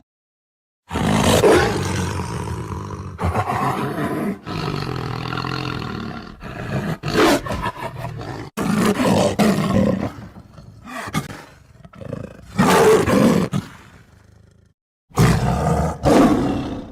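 Lion roaring again and again, one loud roar after another, broken by sudden dead-silent gaps where the recording is cut: one just after the start and one shortly before the end.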